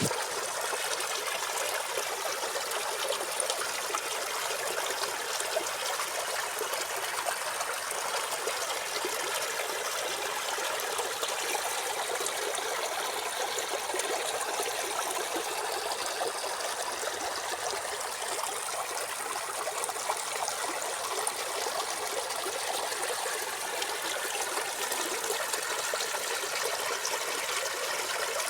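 Water trickling and flowing steadily, with no breaks or changes.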